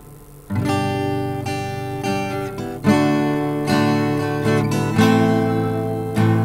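Acoustic guitar played by strumming: a quiet ringing chord fades out, then about half a second in a loud strummed chord rings out, followed by new chords struck every second or two.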